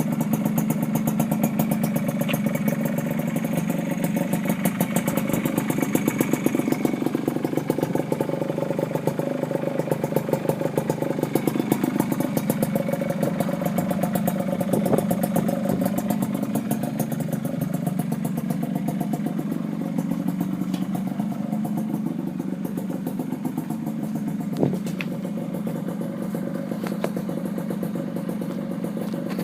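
Suzuki AX100's two-stroke single-cylinder engine running through a generic aftermarket racer exhaust pipe. It runs steadily with a rapid popping exhaust beat, and the revs rise slightly now and then.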